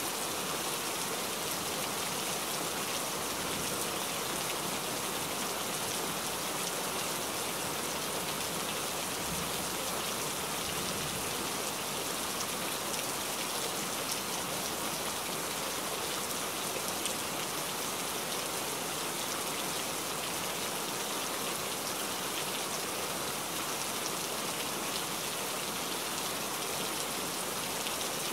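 Steady rain falling on forest foliage: an even hiss with scattered faint drop ticks.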